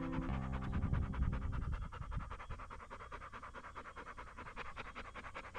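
Large pit bull mix dog panting rapidly and evenly close to the microphone, mouth open and tongue out. Soft background music fades out in the first second or two.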